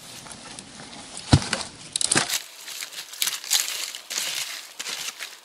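Rustling and crinkling handling sounds, with one sharp knock just over a second in.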